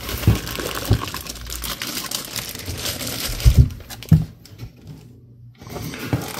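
Clear plastic bags crinkling and packaging rustling as boxed speakers are lifted out of their foam insert, with a few soft knocks along the way. The rustling drops away for about a second near the end.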